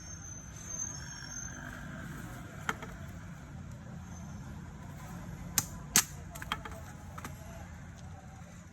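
Toyota Corolla GLI engine running at a steady idle, with a few sharp clicks or knocks heard now and then, around three seconds in and again two to three times near the middle. This is the noise the car is being checked for.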